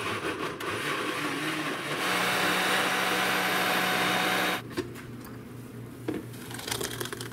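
Hamilton Beach countertop blender puréeing whole sugar snap peas. It runs rough and uneven at first while chopping the pods, then steadier and louder from about two seconds in once the mix has turned to liquid, and cuts off after about four and a half seconds. A few light knocks follow as the jar is handled.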